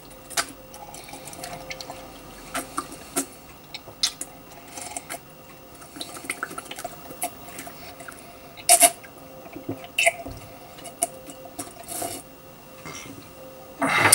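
A person drinking water from a glass, sipping and swallowing in a long string of short wet gulps, a few of them louder, about nine and ten seconds in. It ends with a loud, breathy noise.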